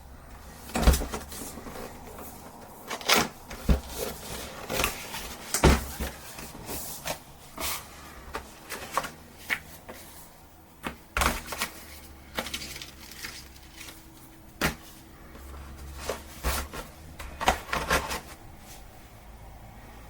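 Irregular knocks, clicks and rustles of things being handled close to the microphone, over a faint low hum.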